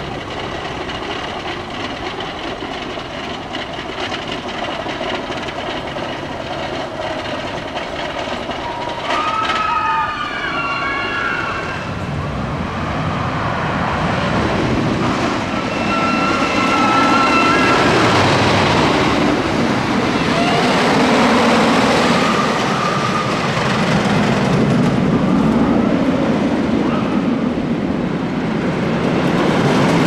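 GhostRider wooden roller coaster's Millennium Flyer train running along the wooden track, its rumble growing louder from about twelve seconds in. Riders' yells rise and fall over it twice.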